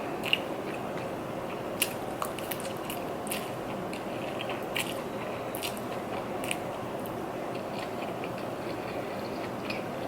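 A person chewing lo mein noodles: scattered wet mouth clicks and smacks about once a second over a steady background hiss.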